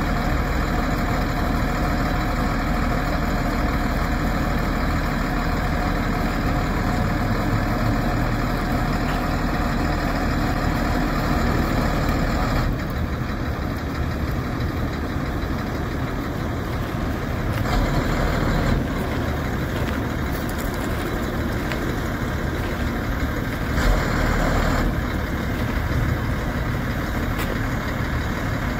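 The engine of a 1992 Ford F700 bucket truck runs steadily, powering the hydraulic aerial boom as it is lowered. About halfway through, the sound drops slightly, with short swells in loudness a little later.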